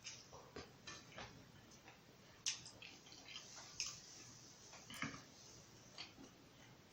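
Faint eating sounds: soft mouth clicks and smacks of chewing, with a few sharper clicks scattered through.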